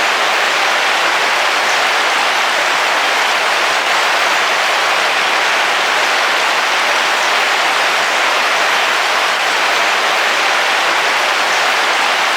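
Heavy rain falling steadily on the roof of a car, heard from inside: a dense, even hiss.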